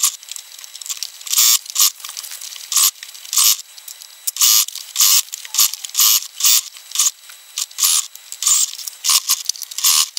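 Electric sewing machine stitching a curved collar seam in many short spurts, stopping and starting every half second to a second as the fabric is turned around the curve.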